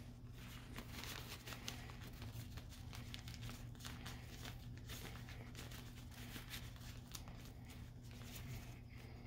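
Faint crinkling and rustling of parchment paper and a 25 micron mesh rosin filter bag being handled, with many small scattered ticks, as dry sift is worked down to the bottom of the bag.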